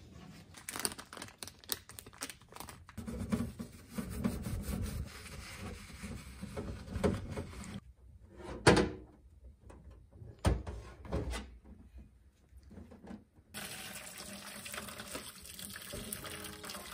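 Stainless steel wire sink rack knocked and clinked against a stainless sink while being rinsed, with scattered sharp metal taps and water splashing. About three-quarters of the way through this gives way to a steady hiss of hot water being poured into a basin over gas-stove trivets.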